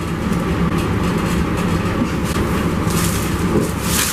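A steady low rumbling hum, with a short rustle of plastic and paper near the end as the bag and book are handled.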